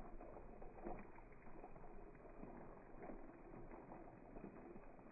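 Faint rattle of a battery-powered toy train running along plastic track, with small irregular ticks.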